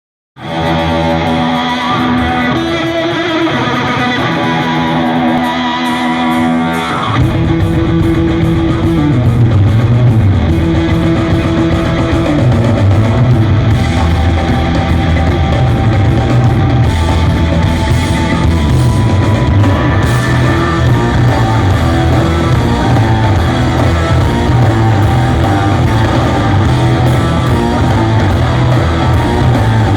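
Live rock band playing: a guitar riff alone at first, then the bass and drums come in about seven seconds in and the full band carries on.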